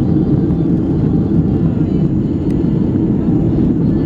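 Airliner cabin noise: the engines and rushing air make a steady low rumble inside the passenger cabin.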